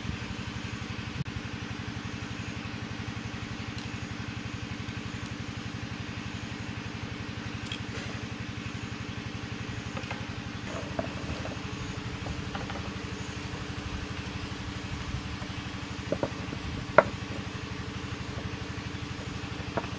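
A small engine running steadily at idle, with an even hum. Near the end, a few sharp snaps as pruning shears cut through green canes.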